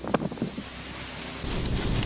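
Storm with heavy wind-driven rain and a few sharp crackling cracks at the start, from a power line arcing. About one and a half seconds in it cuts to the steady rush of heavy rain and wind around a car driving through the storm.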